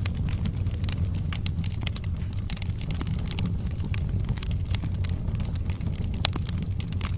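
Wood fire burning in a fireplace: a steady low rumble of the flames with frequent sharp crackles and pops from the burning logs, one louder pop about six seconds in.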